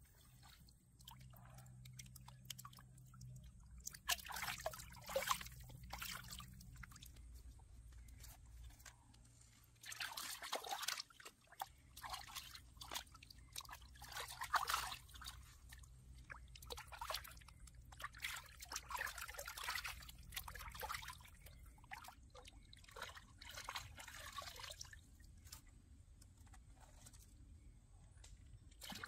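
A hand splashing and swishing in shallow pond water at the bank, in irregular bursts of splashes and trickles.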